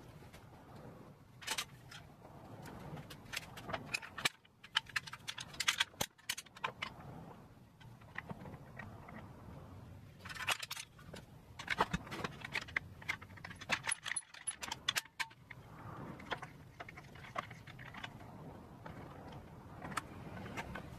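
Aluminium bar clamps being set across a wooden box frame and snugged up: scattered metallic clicks, clinks and short rattles of the clamp heads and jaws sliding and locking on the bars, in several quick clusters.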